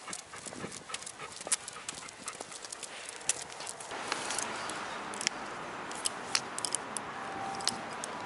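Golden retrievers walking on leash, with irregular light clicks and taps of their footfalls and leash hardware. A steady background hiss sets in about halfway through.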